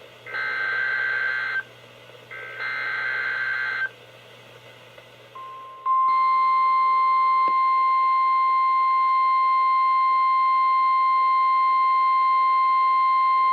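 NOAA Weather Radio emergency alert tones through a weather radio's speaker. First come two bursts of SAME digital header data, each about a second long. Then the steady 1050 Hz warning alarm tone starts faintly, jumps loud about six seconds in, and holds, signalling that a new warning is about to be read.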